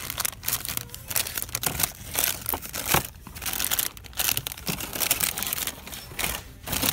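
Irregular crinkling and rustling of handling noise close to the microphone, in uneven bursts.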